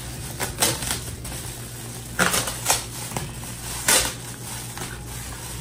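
Crinkling and crackling of a silver insulated Mylar shipping bag being handled and opened by hand, in a few short sharp crinkles: about half a second in, twice a little after two seconds, and again near four seconds.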